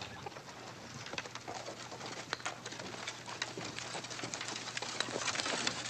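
Chickens clucking, amid a busy scatter of short clicks and ticks that grows louder toward the end.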